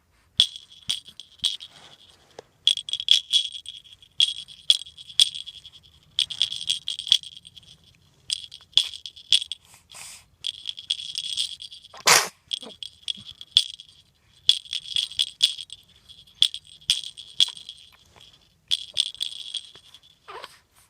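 Small bell toy shaken in repeated bursts, its bells jingling with a bright ringing tone and short pauses between shakes. A short sharp sound stands out about twelve seconds in.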